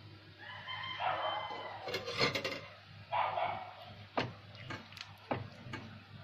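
Metal ladle clinking against a metal cooker pot while stirring thick curry: a few sharp clinks in the second half. Earlier, a longer pitched animal call sounds in the background.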